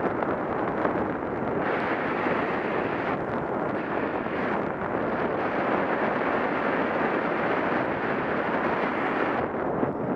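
Steady rushing wind noise from the airflow of a paraglider in flight, buffeting the microphone of a Contour ROAM2 action camera.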